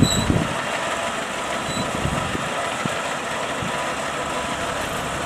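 Kubota DC70 combine harvester's diesel engine running steadily as the tracked machine crawls up a ramp onto a small ferry boat, with a few low knocks in the first half second and a few more around the middle.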